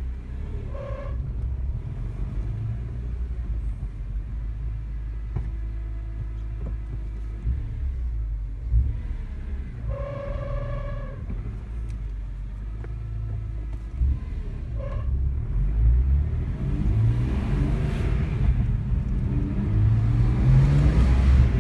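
BMW E46 M3's S54 straight-six, fitted with an E34 M5 clutch and a UUC lightweight flywheel, running with a clutch noise the owner cannot identify. A short pitched whine sounds about a second in, again for about a second near the middle, and briefly a few seconds later; near the end the revs rise and the sound grows louder.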